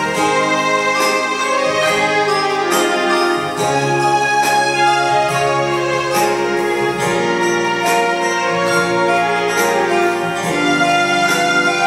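Two digital arranger keyboards, a Yamaha PSR-S970 and a Casio, played together as a duet: a slow melody in long held notes over a moving bass line.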